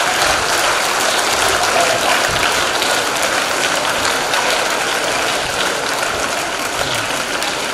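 A large crowd of schoolchildren applauding steadily in an auditorium, a dense patter of many hands clapping with children's voices mixed in.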